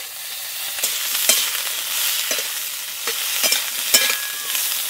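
Cauliflower florets sizzling in hot mustard oil in a wok, stirred with a metal spatula that scrapes and clinks against the pan several times over the steady sizzle.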